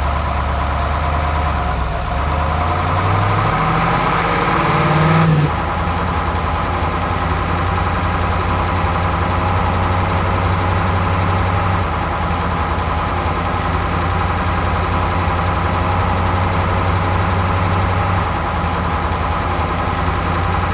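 Engine sound of an RC construction truck, rising in steps over the first five seconds, then dropping suddenly to a steady idle.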